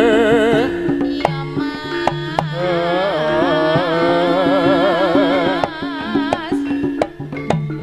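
Live jaranan ensemble music: drum strokes and a repeating pattern of low gong-chime notes under a high, wavering melody line with heavy vibrato, which fades out near the end.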